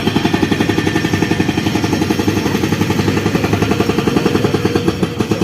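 Rapid, even mechanical knocking, about ten beats a second.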